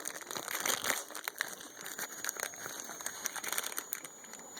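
Packaging crinkling and rustling as it is handled: a steady run of irregular small crackles.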